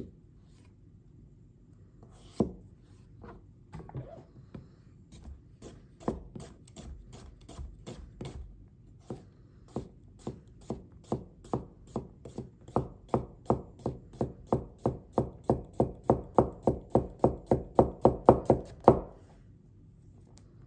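A carbon-steel honyaki gyuto slicing a carrot into rounds, its edge tapping on a synthetic cutting board. A few scattered taps come first, then a steady run of about three taps a second that grows louder and stops shortly before the end.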